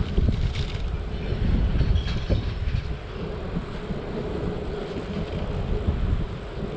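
Wind buffeting the microphone and low rumbling road noise while riding a hybrid bicycle, with a faint steady hum through the middle.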